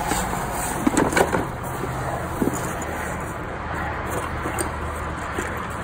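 Small tools and cords being rummaged through in a cardboard box, with a few sharp knocks and rattles about a second in and again near the middle, over a steady background noise.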